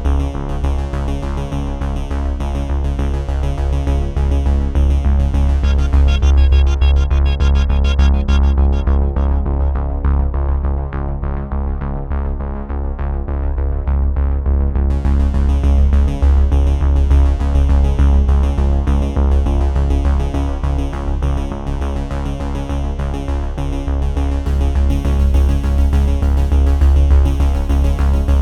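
Background music: an electronic synthesizer track with a strong steady bass, its highs dropping away for a few seconds about a third of the way in.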